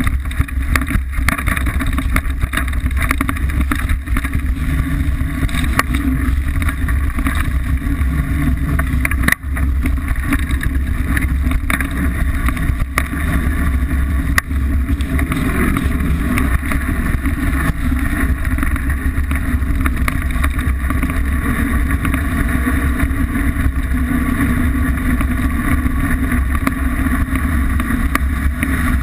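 Liteville 301 mountain bike rolling fast down a dirt trail: steady wind rumble on the camera microphone with constant rattling and knocking of the bike and tyres over the rough ground.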